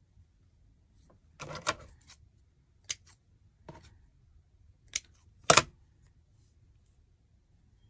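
Craft tools and materials handled on a wooden worktable: scissors and other small tools picked up, worked and set down. The result is a handful of scattered sharp clicks and knocks, the loudest about five and a half seconds in.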